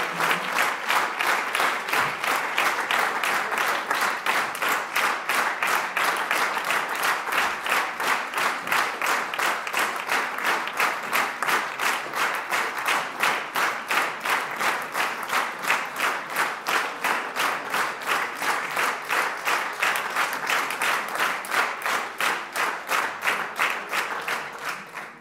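Audience applause in a hall, settling into steady rhythmic clapping in unison, which dies away just before the end.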